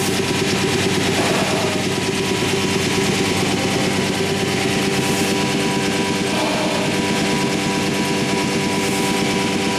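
Anderson Stratos Pro CNC router spindle running steadily as a profile cutter machines the edge of a wooden cope-and-stick door frame: a constant hum with several fixed tones over a hiss.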